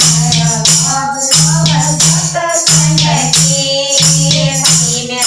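Haryanvi folk bhajan sung to a steady beat of percussion, with a low tone repeating in even beats of about a second and a quarter underneath the voice.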